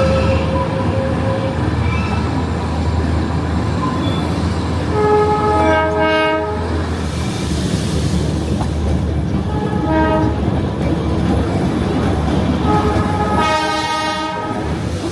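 Darjeeling Himalayan Railway toy train running, a steady rumble with wheel clatter, as a train horn sounds three times: a long blast a third of the way in, a short one, then another long one near the end.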